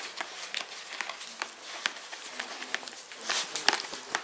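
Handling noise from a small dog in a plastic cone collar on a steel exam table: scattered light clicks and rustles as it shifts and is held, with a louder rustle about three and a half seconds in.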